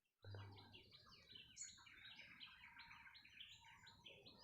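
Faint chorus of songbirds chirping: many short, quick, down-sliding chirps overlapping one another.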